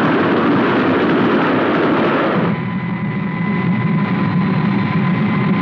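Vehicle sound effects: a loud, rushing rumble of the runaway train that about two and a half seconds in gives way to a steadier engine drone with a thin whistling tone, the sound of the pursuing craft in flight.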